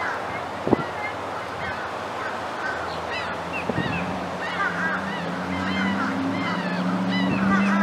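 Birds chirping over and over in short high calls, above a steady low hum that grows a little louder in the second half. Two brief knocks, about a second in and just under four seconds in.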